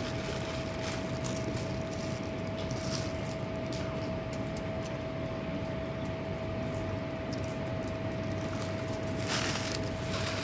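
Steady background hum with one constant pitched tone. Over it come faint rustles and clicks of fingers picking food off aluminium foil, with a short louder rustle near the end.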